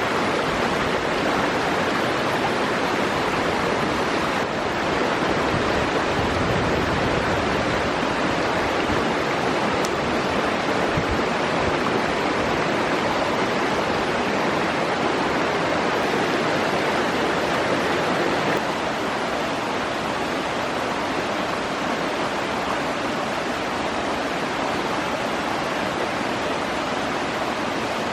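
Forest stream flowing steadily, a continuous rush of water, a little quieter from about two-thirds of the way through.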